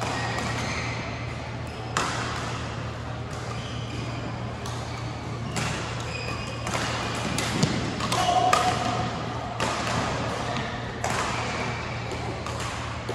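Badminton rackets striking the shuttlecock during a rally, sharp cracks about every second or so, echoing in a large hall. A steady low hum runs underneath.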